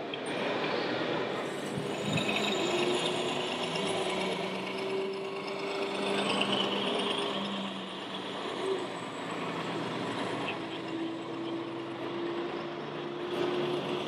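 Radio-controlled model trucks running, with a thin steady motor whine that drifts slightly upward, breaks off about halfway and comes back near the end, over the constant background noise of a busy hall.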